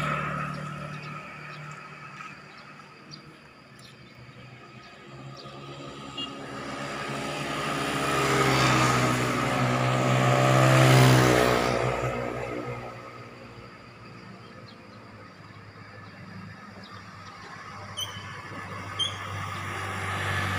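Road traffic on a wet road. A motorbike is passing at the start. Then a louder vehicle approaches and passes close about ten seconds in, its engine and tyre noise rising and then falling away.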